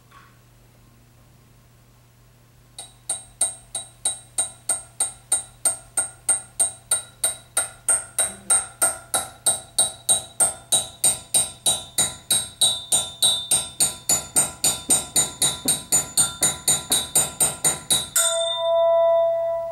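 Ringing, pitched percussion struck in a fast even rhythm, about three strikes a second, starting about three seconds in. Near the end the strikes give way to one held ringing tone, which then cuts off.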